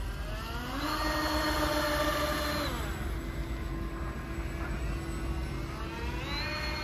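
Whine of an RC model boat's twin brushless outrunner motors driving water jets. The pitch climbs about a second in, holds, drops near three seconds to a lower steady whine, then climbs again near the end as the throttle is opened.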